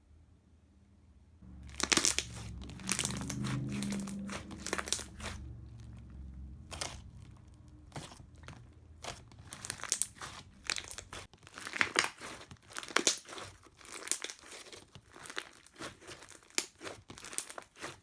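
Thick slime being squeezed, poked and stretched by hand, making many quick sticky clicks and crackling pops, starting about a second and a half in.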